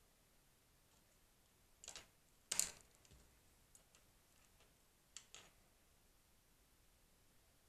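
A few light clicks and rustles of multimeter test probes and wires being handled and clipped on: a pair about two seconds in, the loudest just after, and another close pair a little past five seconds.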